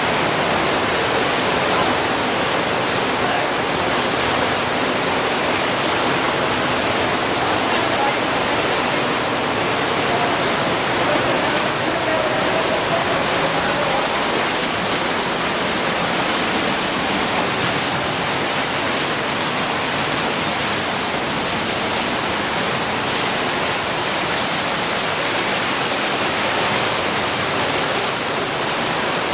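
Fast-flowing underground cave stream: a steady, loud rush of water through the streamway passage.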